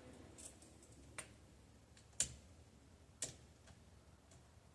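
Four sharp mechanical clicks, roughly a second apart, from a Honda CRX's steering-column controls being worked while the new turn-signal/headlight lever is tested.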